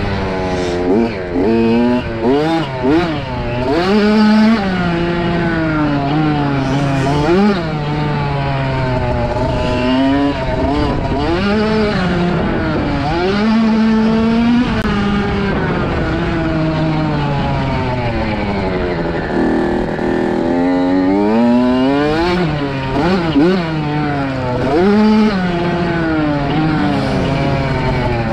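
Kawasaki KX65 two-stroke motocross bike engine revving hard, its pitch climbing and dropping back again and again as the throttle is worked.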